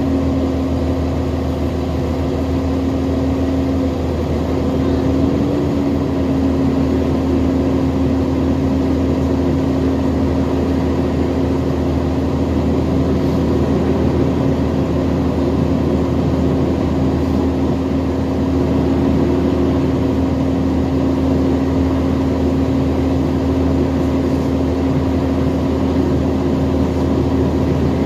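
New Flyer XD60 Xcelsior articulated bus running steadily: an even engine drone with a constant whine held above it that wavers slightly a few seconds in.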